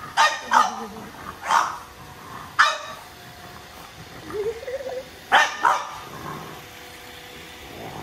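Dog barking: about six short, sharp barks, four in the first three seconds and two close together a little after five seconds, with a brief rising whine just before the last two.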